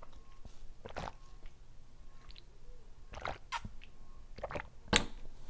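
Drinking from a plastic water bottle: swallowing and wet mouth and lip sounds, picked up close by a clip-on microphone. There are a few soft clicks, and a sharp click a little before the end.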